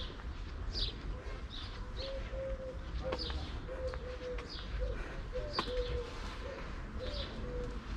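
A pigeon cooing in a repeated run of short, low coos, with small birds chirping high above it and a couple of light taps.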